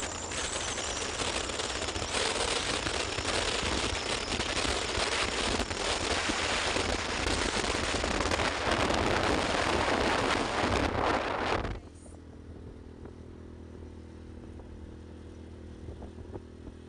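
Wind rushing and buffeting against a phone's microphone on a moving motorbike, rough and crackly. About twelve seconds in it drops away suddenly, leaving a quieter, steady engine hum.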